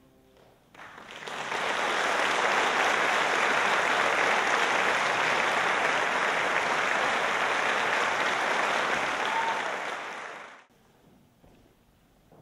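Audience applauding in a large auditorium at the end of a choral piece. The clapping swells in within the first second or so, holds steady, then cuts off suddenly about ten and a half seconds in.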